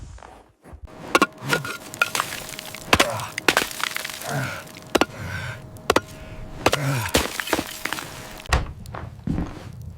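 A series of sharp cracks and knocks, roughly one every half second, with a few short sounds falling in pitch between them.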